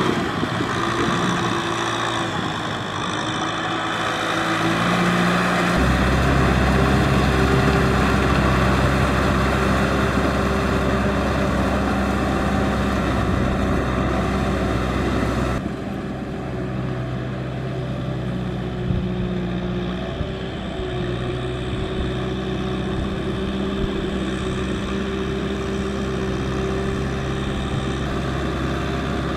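Kubota M6040SU tractor's diesel engine running steadily under load as it pulls a rotary tiller through wet paddy mud. The tone changes suddenly about six seconds in, when a deeper rumble comes in, and again about fifteen seconds in, when the higher part drops away.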